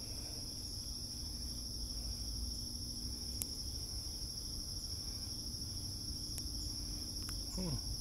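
Steady chorus of crickets, a continuous high-pitched trill, with a few faint clicks in between.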